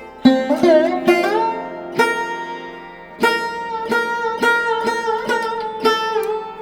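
Instrumental background music: a plucked string instrument picks out a melody of sharply struck notes, several of them bending in pitch, over a steady drone.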